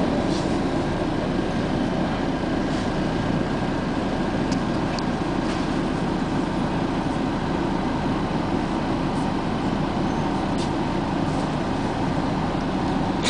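Steady rumble of a moving vehicle, with a few short, high squeaks scattered through it.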